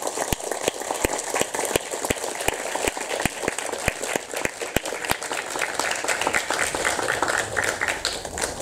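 An audience applauding: a dense run of clapping with many sharp individual claps standing out.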